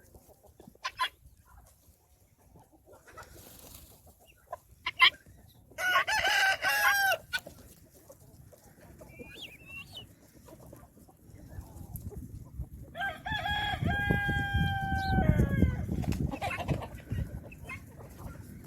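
Rooster crowing twice, a short crow about six seconds in and a longer, held crow about thirteen seconds in that falls off at the end, with hens clucking in between. A low rumbling noise sits under the second crow.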